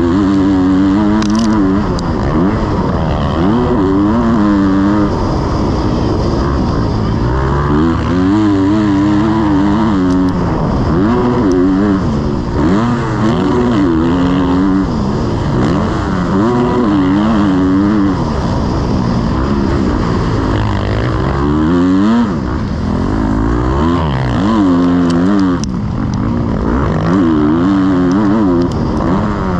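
Motocross bike engine revving hard and easing off again and again, its pitch climbing and dropping every second or few as the throttle is opened and closed while the bike is ridden.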